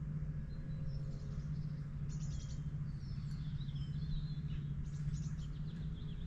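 Small birds chirping and warbling over a steady low rumble, with two short rapid rattling trills about two and five seconds in.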